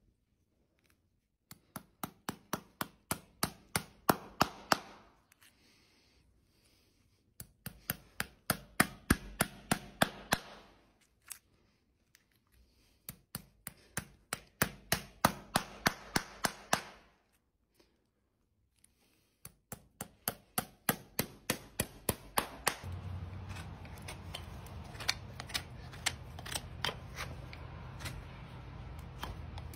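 Farrier's hammer tapping horseshoe nails into a hoof wall: four runs of quick, sharp taps, about three or four a second, each run growing louder as the nail is driven home, with short pauses between. Near the end the tapping gives way to a steadier hiss with a few scattered clicks.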